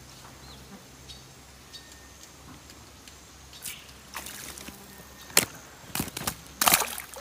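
A hooked fish splashing as it is pulled out of swamp water, then flopping on dry grass and sandy soil: a run of loud, sharp slaps and rustles starting about three and a half seconds in, the loudest near the end.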